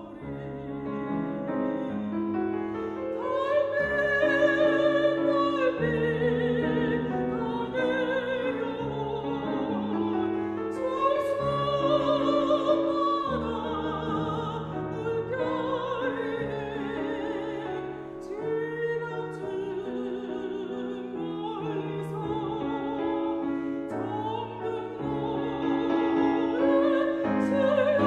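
Mezzo-soprano singing a Korean art song (gagok) in classical style with vibrato on held notes, over piano accompaniment.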